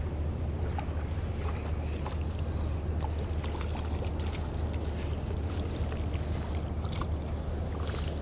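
A steady low rumble throughout, with scattered light clicks from the spinning reel and tackle as a small sea bass is reeled in and landed, and a brief splash near the end.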